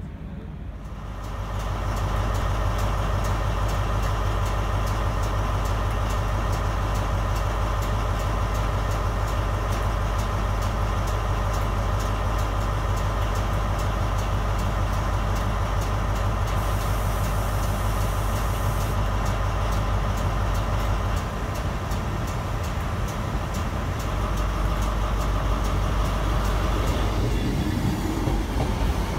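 Diesel engine of a Class 43 HST power car running loudly and steadily, a deep hum with a steady whine above it. In the last few seconds a diesel multiple unit's engine and wheels are heard alongside.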